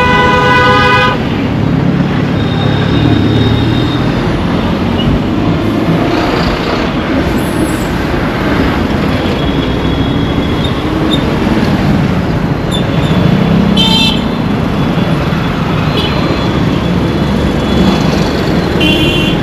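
Busy Indian road traffic: a steady rumble of engines and tyres, with a loud, long horn blast that cuts off about a second in. Several shorter horn toots follow at intervals.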